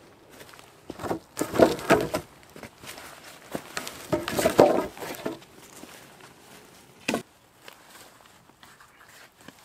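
Footsteps crunching through dry leaf litter and twigs in two short bursts, then a single sharp knock about seven seconds in.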